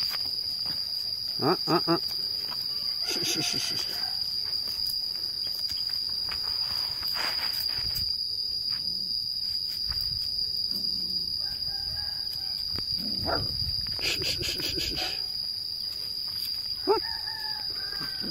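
A steady, high-pitched insect drone, with a few short calls over it, the clearest near the end.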